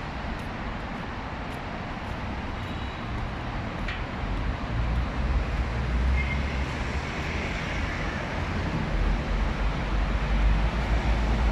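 Steady city road-traffic noise, with a deeper rumble building up from about halfway through.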